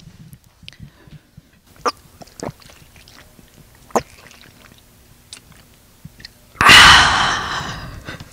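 Water drunk from a plastic bottle close up at a handheld microphone for ASMR: a few small gulping clicks, then about six and a half seconds in a sudden loud breathy exhale into the mic that fades over nearly two seconds.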